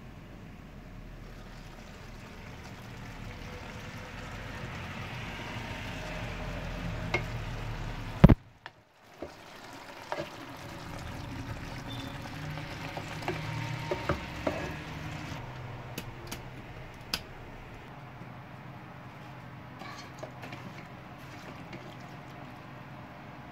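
Penne simmering in tomato liquid in a lidded pot, a steady bubbling hiss that grows louder. About eight seconds in there is one sharp knock; after it a utensil stirs and scoops pasta in the pot, with scattered clicks and scrapes against the pan.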